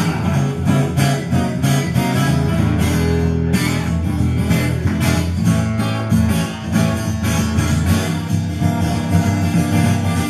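Steel-string acoustic guitar strummed in a steady rhythm, an instrumental passage with no singing.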